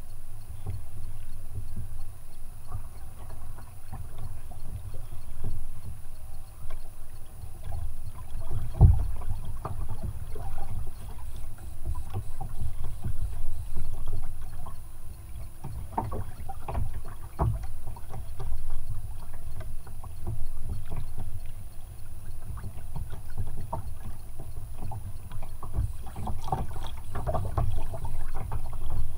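Sea water lapping and slapping against a kayak's hull over a steady low rumble, with scattered knocks and clicks, loudest about 9 seconds in and again near the end.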